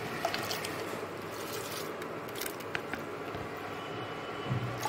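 Washed basmati rice being tipped from a bowl into a pot of boiling water, over a steady hiss from the boil, with a few faint clicks.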